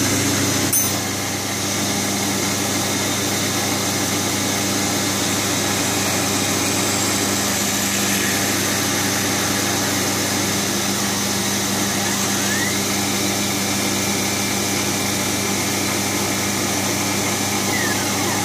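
Milling machine running with its spindle bit cutting into an aluminium bar: a steady machine hum with a click about a second in. About two-thirds of the way through, a higher whine rises, holds, and falls away near the end.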